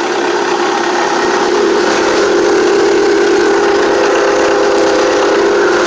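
Case 480D backhoe's 3.1-litre three-cylinder diesel running steadily while warming up, soon after a 0°F cold start with the block heater plugged in. It gets slightly louder about two seconds in.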